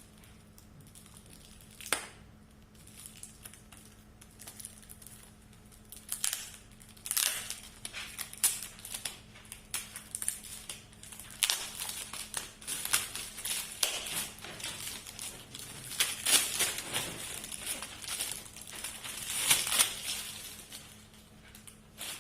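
Gift wrapping paper crinkling and rustling as a present is unwrapped by hand. There is a single sharp crackle about two seconds in, and the rustling comes thick and irregular from about six seconds on.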